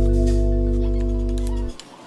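Background music: the final held chord of a pop song, fading slowly, then cutting off sharply near the end and leaving only faint clicks.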